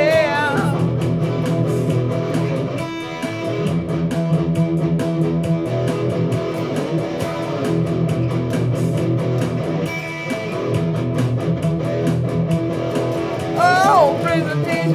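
PRS SE Standard electric guitar played through an amp, strumming and picking chords over a Beat Buddy drum-machine rhythm with steady hi-hat ticks.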